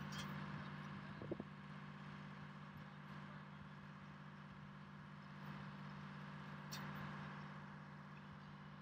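Diesel engine of a rough-terrain crane running steadily at idle, a faint even hum, with one short knock about a second and a half in.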